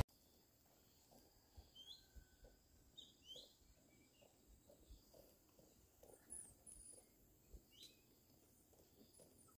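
Near silence, with faint birds chirping now and then and soft, regular footsteps about twice a second on a wet paved road.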